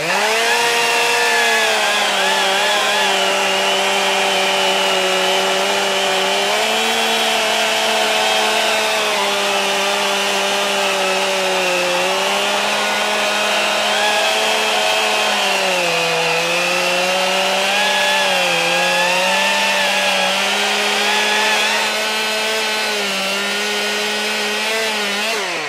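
STIHL chainsaws, the MS 261C petrol and the MSA 300 battery saw, cutting down through a large log at full power. They run steadily, the pitch sagging briefly now and then as the chain loads up in the wood, and the sound stops just before the end as the cuts finish.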